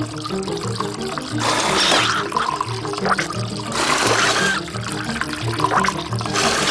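Cartoon soundtrack: background music with a breathy, rushing noise that comes back three times, about every two seconds, with short rising whistles.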